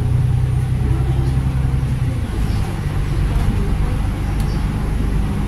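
A bus's engine and tyre noise heard from inside the cabin: a steady low drone whose engine note changes about two seconds in.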